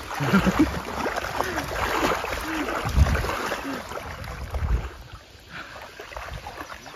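Shallow river water splashing as a Labrador retriever runs through it, for about the first five seconds, with a couple of low bumps about three and almost five seconds in. After that the splashing dies down to a quieter wash of water.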